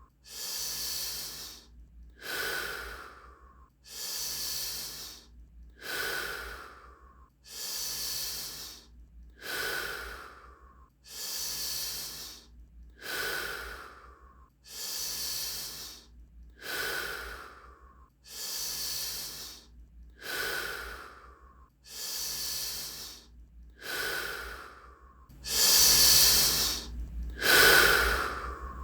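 Wim Hof method power breathing: deep, paced breaths in and out, about one full breath every two seconds, the last two noticeably louder.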